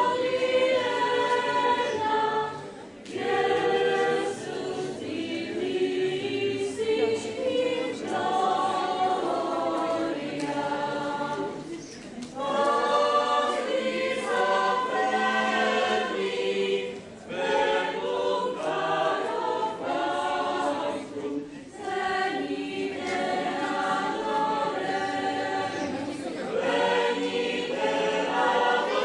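Choir of mixed voices singing a Christmas carol in phrases, with short breaks for breath between them.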